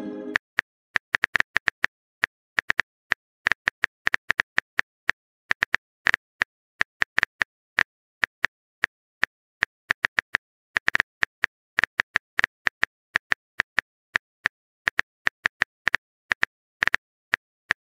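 Phone keyboard typing sound effect: short, sharp key clicks in quick irregular runs with brief pauses, as a text message is typed out letter by letter.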